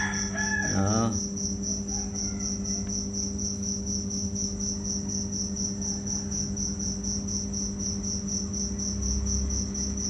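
An insect chirping steadily, a high note pulsing very regularly several times a second, over a steady low hum. A short pitched call in the first second.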